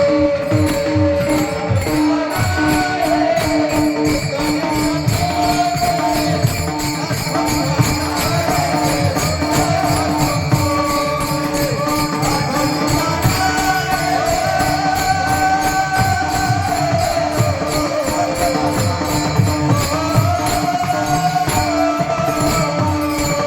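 Devotional kirtan music: a steady drone, a gliding melody line, a hand drum beating and small hand cymbals jingling in a fast, steady rhythm.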